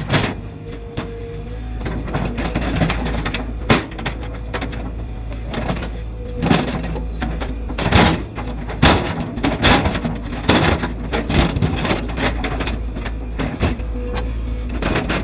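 Hydraulic excavator of about 20 tons with a 0.75 m³ bucket working a slope: a steady low diesel engine drone under repeated sharp clanks and knocks from the bucket and boom linkage, thickest in the middle of the stretch.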